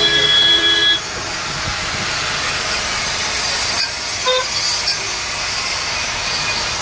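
A horn sounds for about a second at the start. Then an angle grinder grinds the end of a stainless steel railing tube, a steady high grinding hiss.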